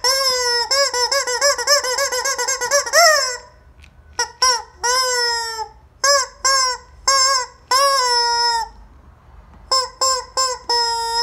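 Rubber squeaky chicken toy being squeezed: a fast run of short squawks for about three seconds, a short pause, several longer squawks, another pause, then quick squawks again near the end.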